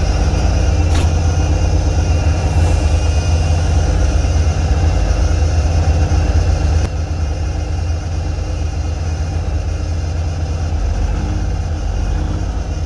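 Heavy truck engine idling steadily while its air brake system builds pressure. A single click sounds about a second in, and the engine note turns slightly quieter and duller about seven seconds in.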